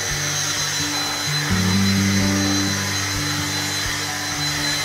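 A cordless handheld vacuum cleaner running with a steady high whine, under background music with sustained low notes.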